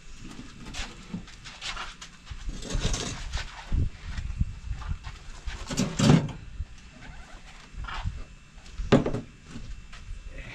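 Irregular handling noises from potting work: rustling and scraping, with louder knocks about 6 and 9 seconds in.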